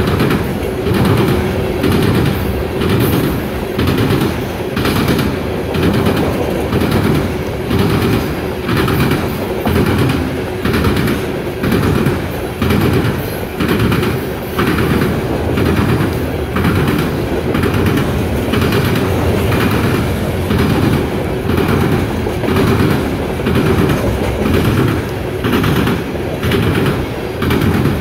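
Loaded coal hopper cars of a CSX freight train rolling past, their wheels clacking in a steady rhythm, about once a second, as the trucks cross the rail diamond, over a constant rumble.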